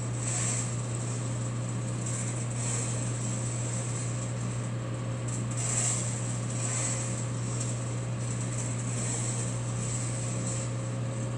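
Air-type sample coffee roaster running steadily early in the roast: a constant hum from its fan and heater with a soft hiss that swells roughly once a second as green beans tumble in the rotating roasting cage.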